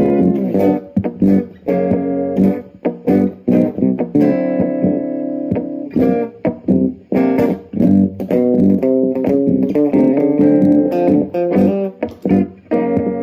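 Acoustic guitar played through a Behringer UO300 Ultra Octaver pedal: a steady run of picked notes and chords with a bass-like octave-down tone beneath them.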